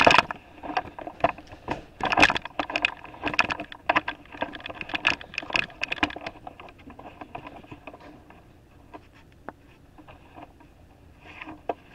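Clicks, taps and rubbing from the camera being handled and set back on its stand, busy for about six seconds, then quieter with a few isolated clicks.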